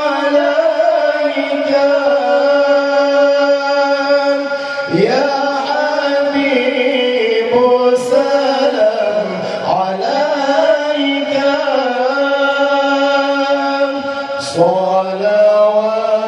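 Two men singing sholawat (praise songs for the Prophet Muhammad) as a duet through microphones, in a high register. The phrases are long, held and ornamented, with a new phrase starting about five seconds in and another near the end.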